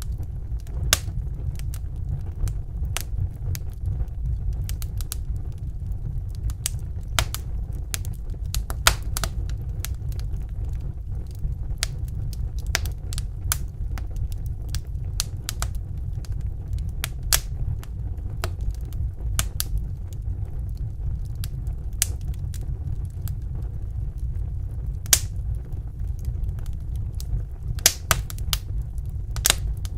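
Wood fire in a fireplace crackling: irregular sharp pops and snaps over a steady low rumble.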